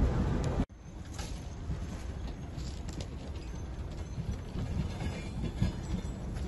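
Wind rumbling on a phone microphone outdoors, with scattered faint clicks and rustles. A louder rumble cuts off abruptly under a second in, and a steadier, quieter rumble follows.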